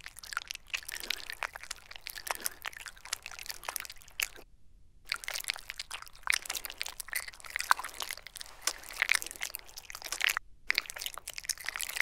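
A person chewing noisily up close: dense crackling, crunching mouth sounds. They cut off abruptly to silence twice, a little after four seconds in and again about ten seconds in.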